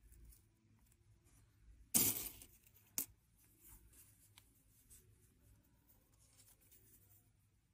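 Faint handling sounds of striped sunflower seeds being picked from a ceramic dish and pushed into a raw potato: a short rustle about two seconds in, a sharp click a second later, and scattered small clicks.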